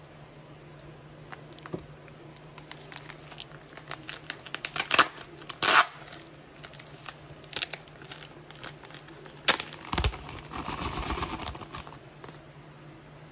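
Plastic bag crinkling and rustling as it is handled, with several sharp clicks and snaps, the loudest about five and ten seconds in. A low steady hum runs underneath.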